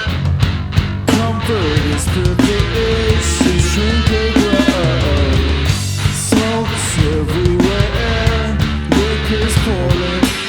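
Loud heavy rock band playing live: electric guitar with notes that bend up and down, a heavy low end, and drums hitting steadily throughout.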